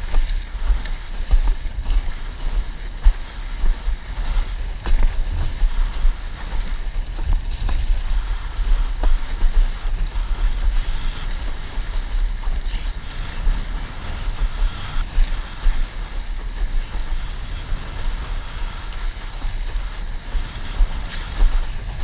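Wind buffeting the microphone in a heavy, fluctuating rumble, over the hiss and splash of a windsurf board cutting through choppy sea water.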